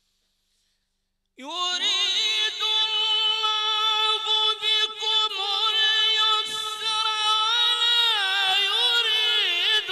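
A male reciter's voice in melodic Quran recitation: after a second and a half of silence it enters and holds one long, ornamented phrase whose pitch rises and falls slowly.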